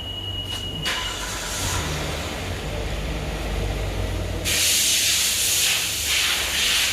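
A steady low rumble, then about four and a half seconds in a loud, even hiss starts suddenly and keeps going, like air escaping under pressure.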